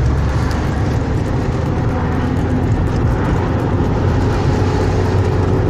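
Steady low rumble of a car running, heard inside the cabin.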